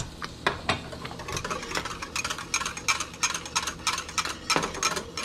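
Wire whisk stirring grits in a stainless steel saucepan, its wires clicking and scraping against the pan in quick strokes, about five a second. A few louder metal clinks come in the first second.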